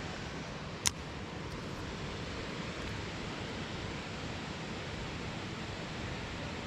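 Steady rush of running creek water, with a single sharp click about a second in.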